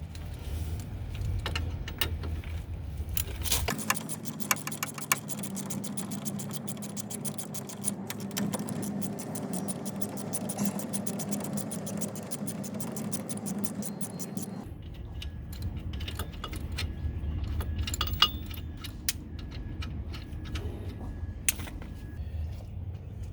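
Metal hand tools and bolts clinking and knocking against car suspension parts while a strut assembly is unbolted, with a long stretch of rapid, even ratchet-wrench clicking in the middle.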